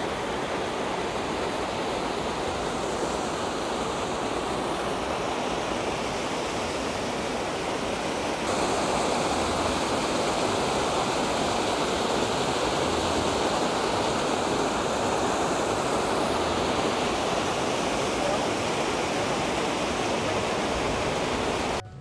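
Waterfall: a steady rush of falling water, stepping up slightly in loudness about eight seconds in.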